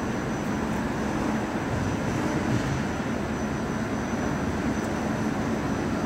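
Steady machine drone of a running potato frying line, its wire-mesh conveyor and the electric cooling fans over the belt, with a thin high whine above it.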